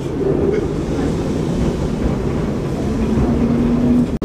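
Vintage Lisbon electric tram (Tram 28) rolling along street rails, heard from inside: a steady low rumble of the running gear and motors. A faint steady whine comes in about three seconds in.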